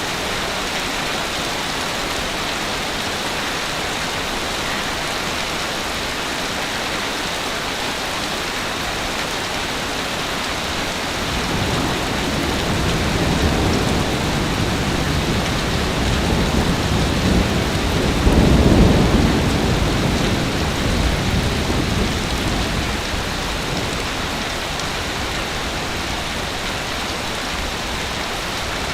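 Ocean waves on a beach: a steady hiss of surf, with one wave swelling in from about a third of the way through, at its loudest as a low rumble a little past the middle, then washing back out to the hiss.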